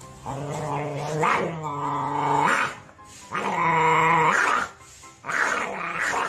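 A dog growling at a food bowl in three long, drawn-out growls, each about one to two seconds with short breaks between; the first rises in pitch at its end. It is a warning growl over food.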